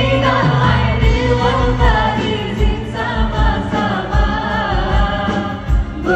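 Live Malay pop song: a woman sings lead into a microphone over a band with electric guitar and drums, heard through the stage sound system.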